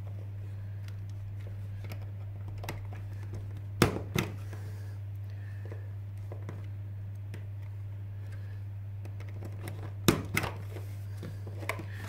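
A punch-down tool snapping as it seats and trims wires in the terminals of a Cat5e network socket: two pairs of sharp clicks, one about four seconds in and one about ten seconds in, over a steady low hum.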